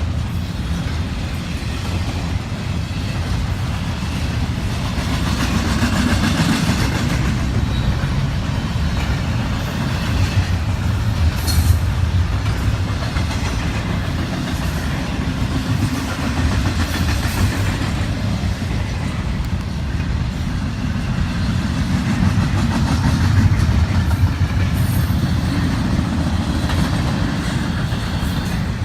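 Intermodal freight train rolling past, its wheels on the rails making a steady rumble.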